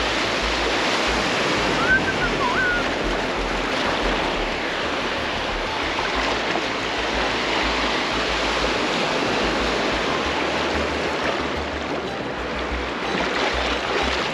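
Ocean surf washing steadily onto the beach, with a short wavering high-pitched call about two seconds in.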